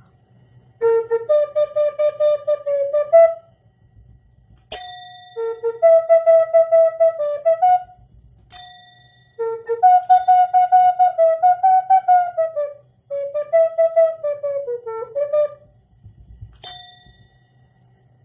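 Music: a flute-like melody played in four phrases of quick, fluttering notes, with a bright bell ding at the start of several phrases.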